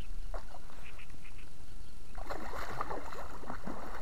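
A large hooked fish thrashing and splashing at the water's surface close to the bank, a few faint splashes at first, then heavy, continuous churning from about two seconds in.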